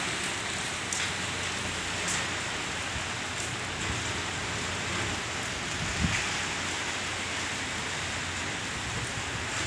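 Heavy typhoon rain in a steady hiss, with a brief low thump about six seconds in.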